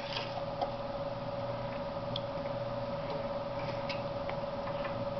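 Quiet room with a steady faint tone under it and a few light clicks and taps of a fork on a plate.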